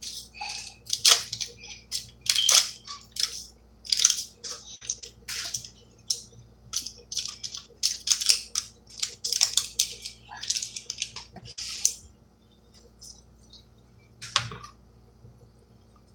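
Plastic instant-ramen packaging crinkling and rustling in hands as it is opened, in quick irregular bursts for about twelve seconds, then mostly still apart from one brief rustle.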